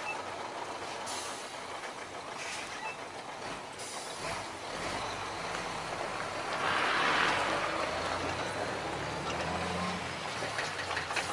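Loaded logging truck's diesel engine running as the truck slides off the edge of a steep dirt track and tips over. A louder rush of noise swells about seven seconds in.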